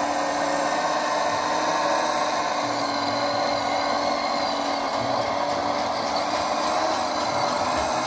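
Steady whirring of a radio-controlled construction model's small electric motor and gearing, running at constant speed.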